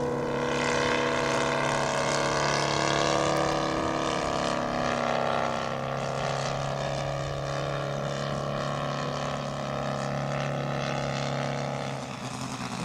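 Scratch-built 1:3 scale Siemens & Halske Sh 11 radial engine of a large model Udet Flamingo biplane running steadily in flight, a propeller drone holding a fairly even pitch. It drops in level near the end.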